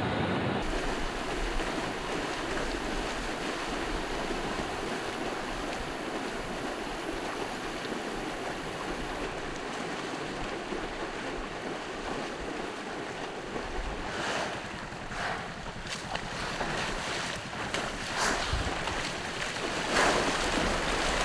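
Water churning and splashing as a herd of water buffalo wades through a river: a steady rushing noise, with several louder splashes in the last few seconds.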